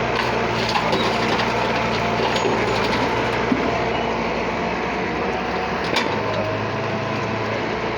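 Excavator running steadily, with a few sharp clicks and knocks.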